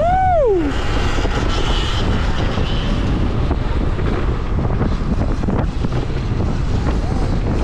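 Wind buffeting the microphone and road noise from riding an electric dirt bike through city streets. A short pitched sound rises and falls right at the start.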